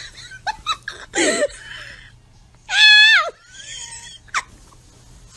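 A person giggling and laughing, with short high voice sounds and one loud, high-pitched shriek about three seconds in.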